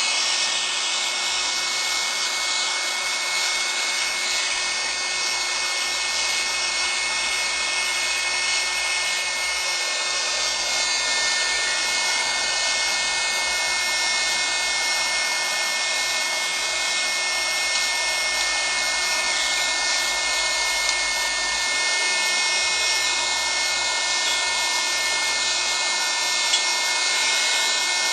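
A small electric airbed pump used as a blower runs steadily, forcing air into a homemade bucket furnace. It makes a constant whirring hiss with a few steady whining tones.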